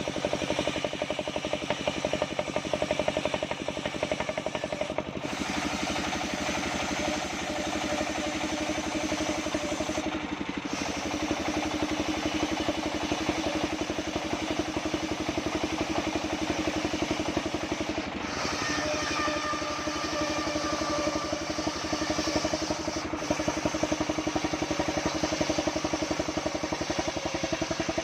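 Engine-driven sawmill band saw running with a steady, fast engine chug, its tone shifting a few times.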